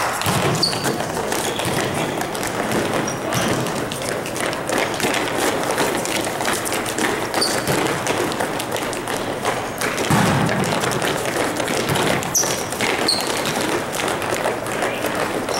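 Volleyballs thudding and players' footsteps on a hard indoor court, many irregular knocks throughout, with a few brief sneaker squeaks.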